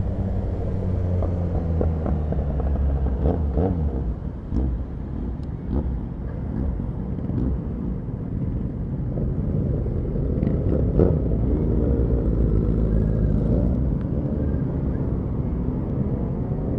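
Motorcycle engine running under way in city traffic, its note rising and falling a few times as the rider works the throttle.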